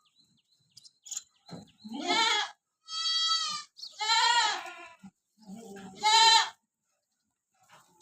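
Goats bleating: four wavering calls, each under a second long, coming one after another over about five seconds, starting nearly two seconds in.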